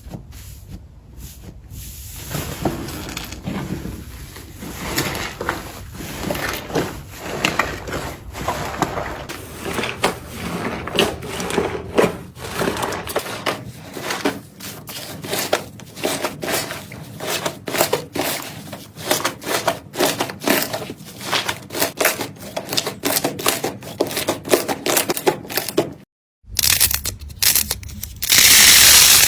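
Slime being squeezed and pressed, giving off dense, irregular crackling and popping clicks. After a short break near the end, a louder hissing crackle follows.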